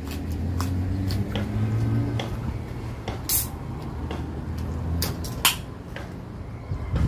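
Eating by hand at a plastic-covered plate of rice and chicken: small clicks and rustles, a brief hiss about three seconds in and a sharp click past the middle, over a steady low hum.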